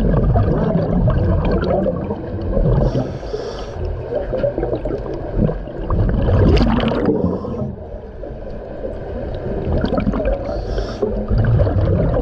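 A diver breathing inside a surface-supplied diving helmet: exhaust bubbles gurgling, with a hiss of inhaled air three times.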